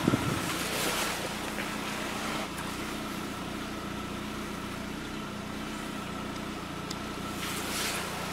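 A steady mechanical hum with a faint high steady tone, and a sharp knock right at the start followed by a few light handling knocks and rustles.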